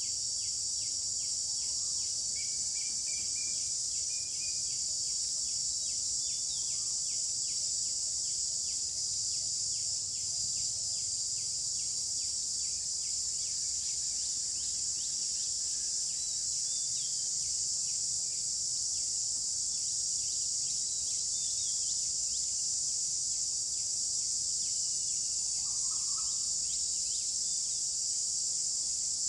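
Steady, high-pitched chorus of insects droning without a break, with a faster regular pulsing from another insect underneath. A few short bird chirps and calls come through here and there, one a little louder near the end.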